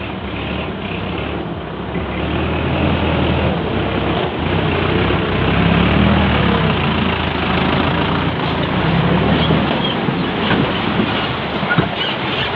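A Sonalika tractor's diesel engine is working under load as it pulls a fully loaded trolley through deep mud. It grows louder as it passes close by around the middle. A sharp knock comes near the end.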